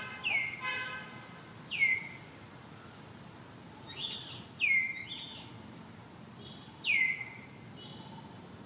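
Short high-pitched animal calls, each sliding quickly down in pitch, four times about every two seconds, with fainter squeaky chirps in between.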